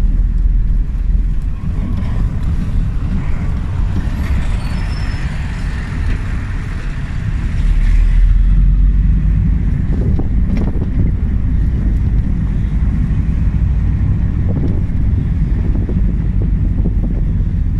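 Interior noise of a moving road vehicle: a steady low engine-and-road rumble, with a hissier stretch from about four to eight seconds in.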